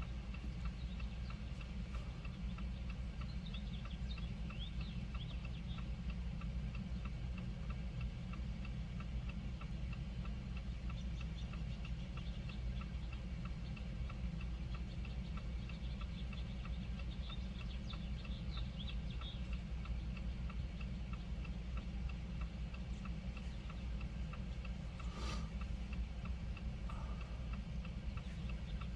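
The hazard-light flasher of a 2019 Jeep Compass ticking steadily inside the cabin, over a low steady hum. A single sharp click sounds near the end.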